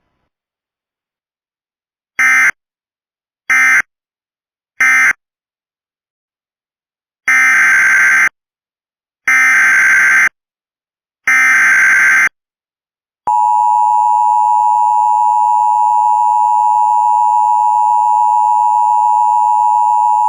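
Emergency Alert System data and tones: three short SAME end-of-message bursts, then three longer SAME header bursts of warbling digital data. About 13 seconds in, the steady two-tone EAS attention signal starts, announcing the next warning.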